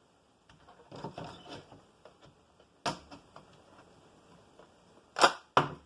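A 2009 Mac Mini's casing being pressed shut: light handling noise, a sharp click about three seconds in, then two loud snaps about half a second apart near the end as the case clicks into place.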